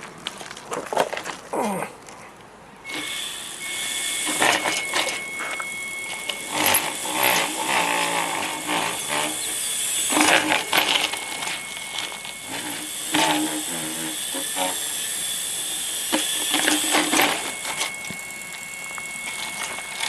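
Washing-machine motor of a home-built 80 V e-bike running, a thin steady high whine over a hiss, starting about three seconds in and swelling in louder surges.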